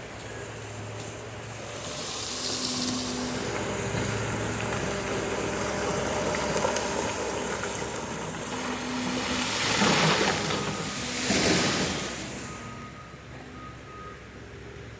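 An engine running with a steady hum over a noisy rush, swelling into two loud hissing surges about ten and eleven and a half seconds in, then dropping away.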